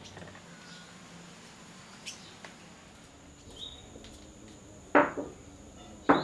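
Two sharp clatters of cookware being handled at a stove, one about five seconds in and a second about a second later, each with a short ringing tail. Under them runs a faint, steady high insect drone, with one brief chirp before the clatters.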